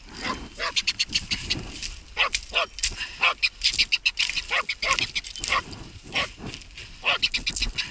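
Hunting laika barking in a steady run of quick barks, about three to four a second, with short pauses between runs.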